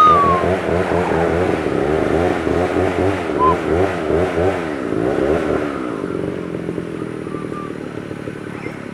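Motorcycle engine running with its pitch wavering up and down, then fading away from about five and a half seconds in. A few short, high whistle-like chirps are heard over it, one loud falling chirp at the start.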